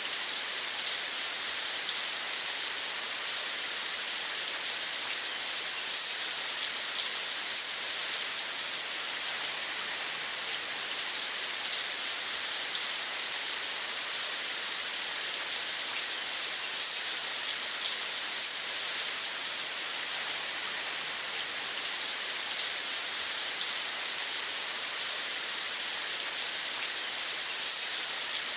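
Steady rain falling, an even hiss with a fine patter of drops, used as sleep white noise.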